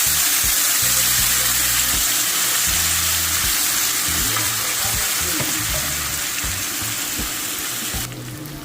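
Chopped onion and tomato sizzling in hot oil in a pot: a steady frying hiss that slowly weakens, then drops off abruptly near the end.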